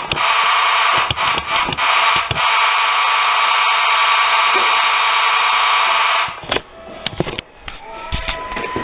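Simplex 2901-9833 electromechanical fire alarm horn sounding a steady, harsh buzz. It cuts out about six seconds in, a few sharp clicks are heard in the gap, and it starts again near the end.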